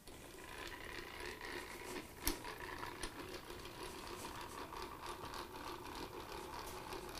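Faint, steady mechanical whirring with scattered light ticks and one sharper click about two seconds in.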